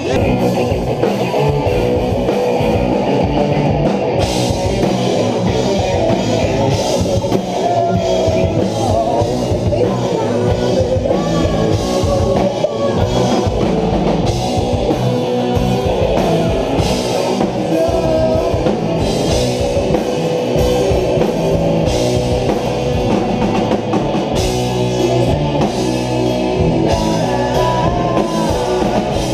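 A rock band playing live: electric guitars, a drum kit and a singer, with a steady beat throughout.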